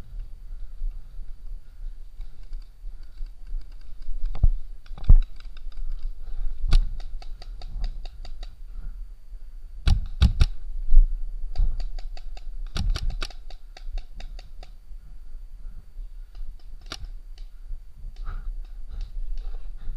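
Paintball markers firing in rapid strings of shots, about nine a second, in several bursts with single shots between them.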